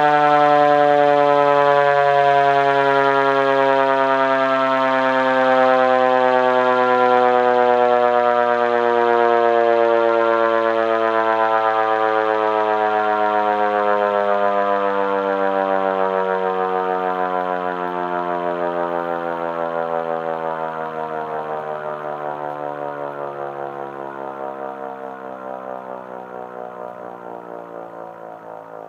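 Federal Signal Q1B electromechanical siren winding down, its wail falling slowly and steadily in pitch and fading.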